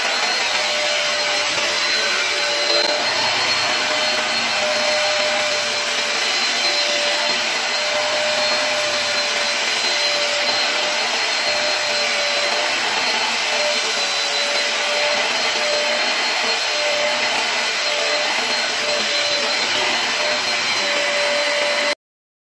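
Upright carpet cleaner running steadily with a constant whine over its rushing suction, as it is pushed back and forth over a rug. The sound cuts off suddenly near the end.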